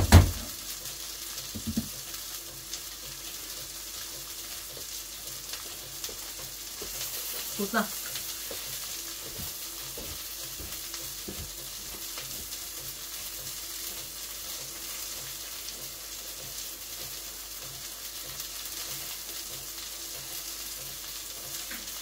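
Food frying in a pan, a steady sizzle throughout, with a short rising squeal about eight seconds in.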